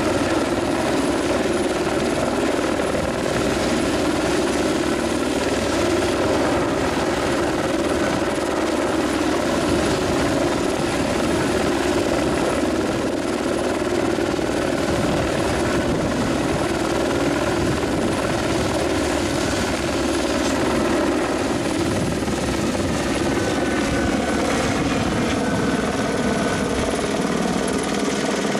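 Helicopter running steadily overhead with a floodlight mast slung beneath it on a long line: the constant beat of the rotor and whine of the turbine. The pitch drops slightly near the end.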